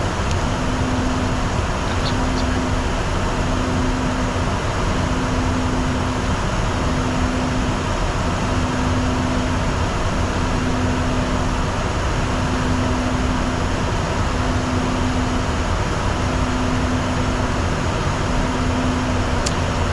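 Steady cockpit noise of a Bombardier Challenger 604 business jet in flight: a constant rush of airflow and air-conditioning over a low hum, with a low tone that cuts in and out in a regular pattern about every two seconds.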